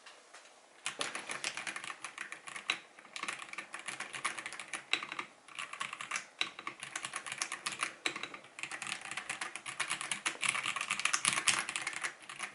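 Fast typing on a Dareu A98 mechanical keyboard: a dense run of key clicks starting about a second in, with a short break about two-thirds of the way through.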